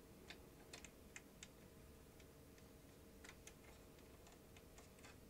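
Faint, irregular small clicks and ticks from the parts of a Philips DCC900 cassette deck's tape mechanism being handled while a new pinch roller and its pin are fitted. The clicks come in small groups, over a faint steady hum.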